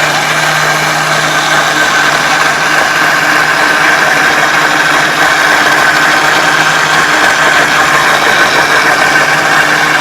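Countertop blender motor running steadily at speed as it blends a blueberry smoothie, a loud, even whirring with a constant hum.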